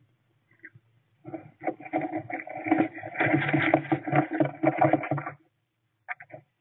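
Northern saw-whet owls scuffling in a wooden nest box: claws scratching on wood and the wood-shaving bedding rustling. The dense scratching starts about a second in, lasts about four seconds, then breaks off, with a few sharp scratches near the end.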